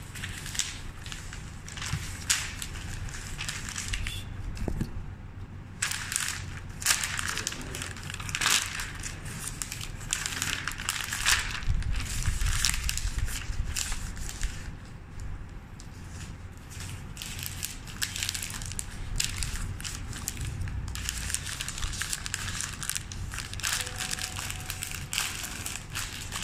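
Sheets of white florist's wrapping paper being handled, folded and crinkled around a bouquet: irregular crackling and rustling, louder in some stretches and lighter in others.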